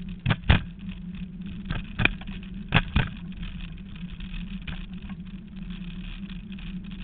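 Dog scooter rolling fast over a rough grass track: a steady rumbling hum with several sharp knocks in the first three seconds, some in quick pairs, as the scooter jolts over bumps.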